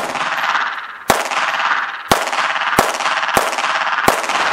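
Frommer 37M pistol firing 9mm Browning short rounds: six shots, the first three about a second apart, then quicker. Each shot is followed by a long ringing echo.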